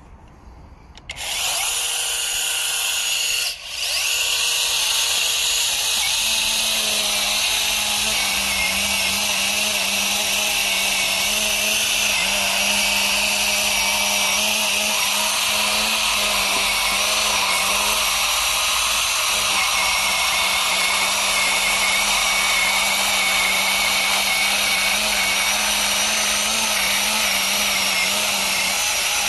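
Battery-powered 6-inch mini chainsaw starting up about a second in, cutting out briefly a couple of seconds later, then running steadily as it cuts through wood.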